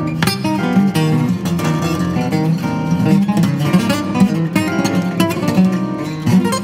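Solo acoustic guitar playing a busy passage of quickly picked notes and chords.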